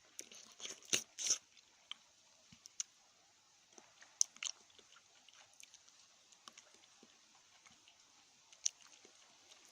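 Close-up chewing and biting of a Juzt Jelly chocolate: sharp, wet mouth clicks, bunched in the first second and a half, then only now and then.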